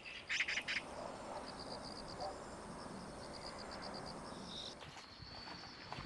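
Faint countryside ambience: a short bird chirp near the start, then insects trilling in quick pulses over a thin, steady high ringing.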